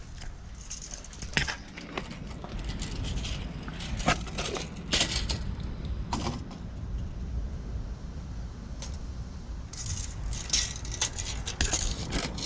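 Scattered metallic clicks and jingling from a steel tape measure being pulled out and handled to measure the car's ride height, over a steady low background hum.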